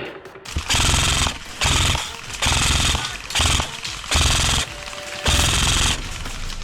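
Airsoft electric guns fired full-auto in repeated short bursts, each a fast rattle of shots about half a second to a second long.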